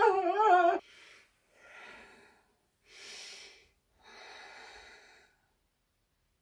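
A man's high, wavering wail that breaks off about a second in, followed by four faint breaths.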